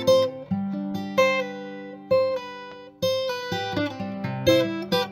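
Acoustic guitar music: chords struck about once a second, each ringing out and fading.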